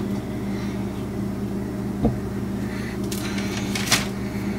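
Steady low hum of a kitchen appliance, with a soft thump about two seconds in and a short scratchy clatter near the end as a metal cookie cutter is handled on the dough.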